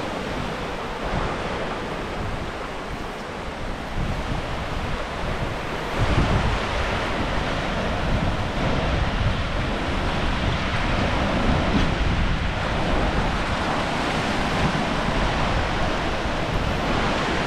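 Ocean surf washing up the beach, with wind buffeting the microphone; the noise grows louder about six seconds in.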